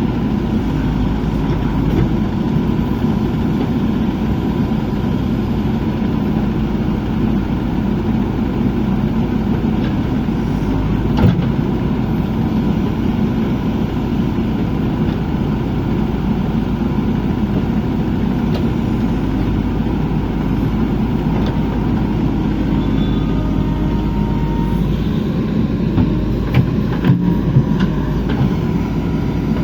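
JCB backhoe loader's diesel engine running steadily under load while digging, with a single sharp knock about a third of the way in and a few more knocks near the end.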